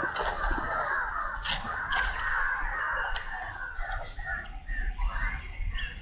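Crows cawing: a harsh, noisy chatter at first, then a run of short repeated caws in the second half.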